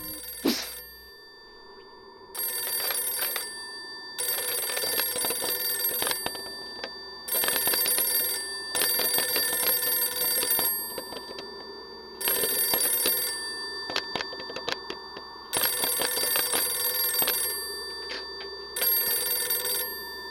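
A telephone bell ringing in about seven bursts, each one to two and a half seconds long with short pauses between them, starting about two seconds in.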